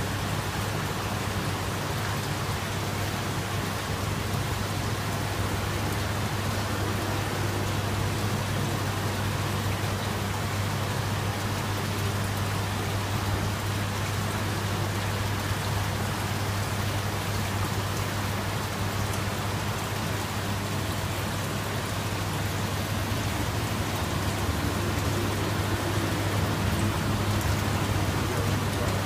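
Aquarium air stone bubbling steadily, its stream of bubbles breaking at the water surface in an even, rain-like hiss, over a constant low hum.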